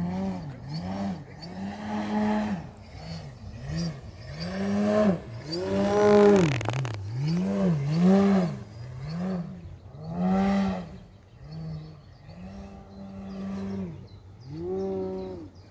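Electric RC aerobatic plane in flight: its Dualsky GA8000 outrunner motor and 28-inch Xoar propeller droning, the pitch swooping up and down over and over with the throttle. A short rush of noise comes near the middle, the loudest moment.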